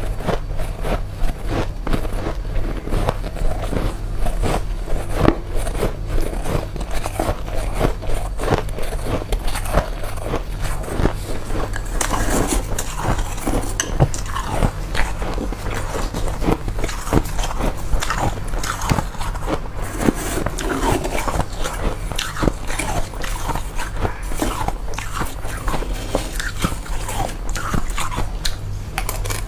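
Mouth biting and chewing powdery freezer frost: a continuous run of crunches and small crackles.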